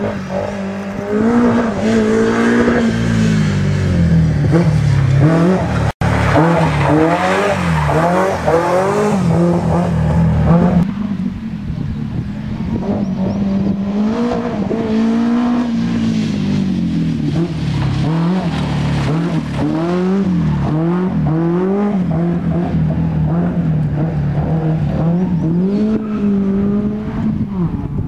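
Rally car engine being driven hard on a special stage, revving up and falling back again and again as the driver works through the gears and corners. The sound cuts out for an instant about six seconds in.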